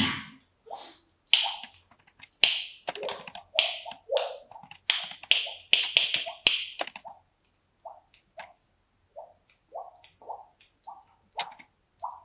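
African grey parrot vocalising: a rapid run of sharp clicks and short raspy calls, then, from about seven seconds in, a string of short low whistled notes roughly every half second.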